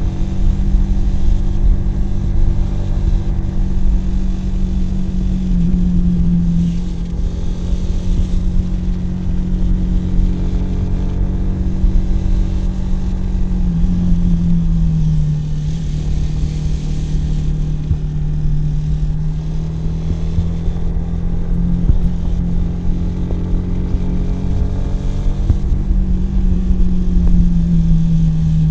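Kawasaki W175's air-cooled single-cylinder engine and exhaust under way, running at a fairly steady pitch with a heavy low rumble. The pitch drops about halfway through and again near the end as the revs fall.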